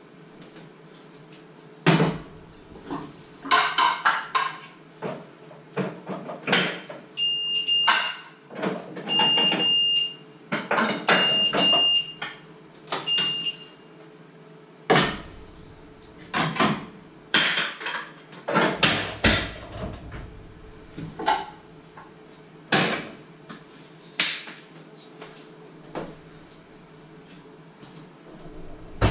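Cutlery, plates and pans clinking and knocking against each other and a stainless-steel sink during washing-up by hand, in irregular clatters. Partway through, an electronic beeper sounds four times, about two seconds apart.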